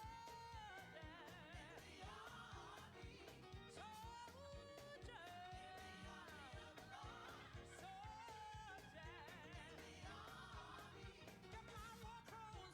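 A faint song: a sung melody over a steady beat.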